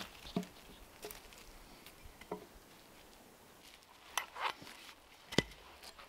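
A dog's footsteps on a dry forest floor: scattered light crackles and ticks of leaves and twigs, with a sharper knock about five seconds in.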